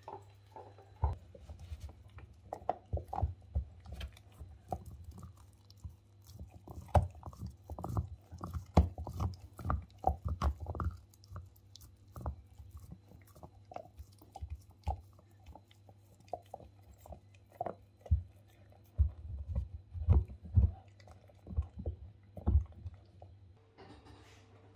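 A dog gnawing and crunching on a chicken-wrapped chew stick: irregular bites and cracks in two busy spells, with a sparser stretch in the middle.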